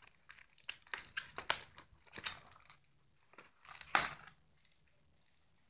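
Cardboard toy box and its packaging being rummaged through and handled: irregular crinkling and rustling, loudest about four seconds in, then stopping for the last second or so.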